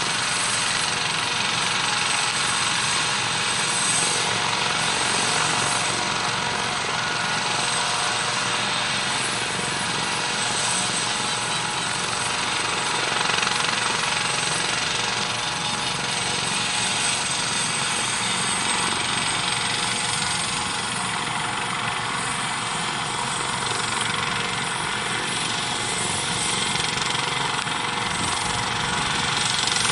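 Helibras HM-1 Pantera (Eurocopter AS565K2 Panther) twin-turboshaft helicopter running steadily, a constant high turbine whine over rapid rotor beat.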